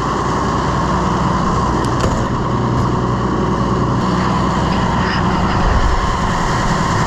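A 6750 tractor's diesel engine idling steadily to warm up just after a cold start, which it made with the help of starting fluid.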